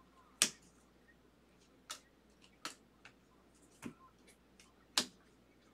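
Baseball trading cards flicked one at a time off a handheld stack, each giving a short sharp snap; about six snaps at uneven spacing, the loudest about half a second in and near the end.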